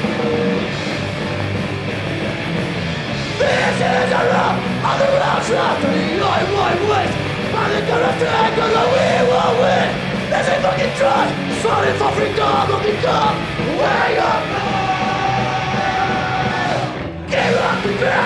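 Punk band playing live. A vocalist starts yelling about three and a half seconds in, holds one long shouted note near the end, and the sound drops out for a moment just before the end.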